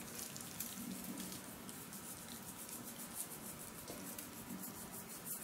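Faint scattered light ticks over a low hum and hiss: a quiet kitchen between actions.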